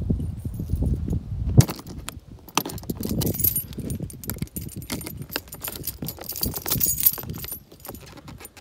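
A low rumbling noise that cuts off suddenly with a sharp knock about one and a half seconds in. Then a bunch of keys jangles and clicks against the metal key-lock latch of an iKamper Skycamp rooftop tent's hard shell as a key is worked in the lock, fading near the end.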